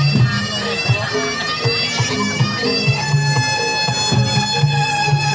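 Reog Ponorogo band playing: a slompret, the reog's double-reed shawm, plays a bending, ornamented melody and then holds one long note from about halfway, over repeating low gong-chime notes and drum strokes.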